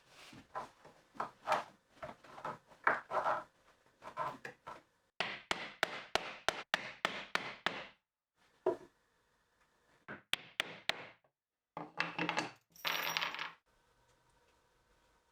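A series of sharp clicks, clinks and knocks from small hard objects being handled, in several short bursts with a fast run of clicks in the middle, cut off abruptly between bursts.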